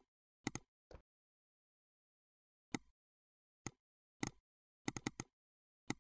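Computer mouse clicks, scattered irregularly, some in quick double-click pairs and a quick run of three about five seconds in, with dead silence between them.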